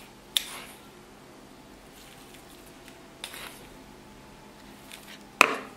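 Metal teaspoon scooping salt from a jar, three short scrapes and clinks, the last the loudest.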